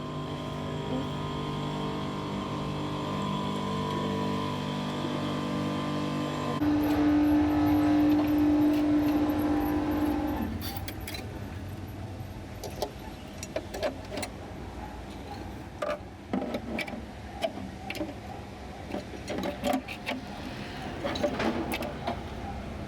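A steady mechanical hum, which changes about six seconds in to a louder single-pitched hum for roughly four seconds and then stops. Scattered clicks and clinks of handled metal or hard parts follow.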